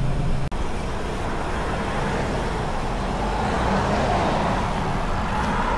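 Steady rushing of wind and road noise from a bicycle ride, with a brief dropout about half a second in.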